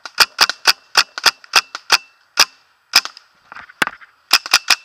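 Paintball marker firing a rapid string of about a dozen sharp shots with short irregular gaps, ending in a quick burst of four near the end.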